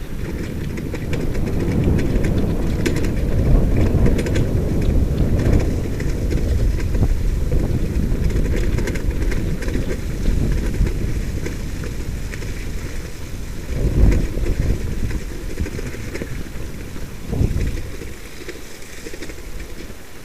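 Low rolling rumble of a sled dog racing rig travelling fast over a wet dirt trail behind a husky team, mixed with wind buffeting the microphone. Two louder jolts come about fourteen and seventeen seconds in.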